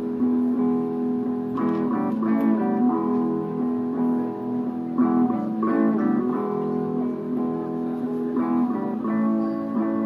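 Acoustic guitar music: sustained notes with strummed chords every few seconds.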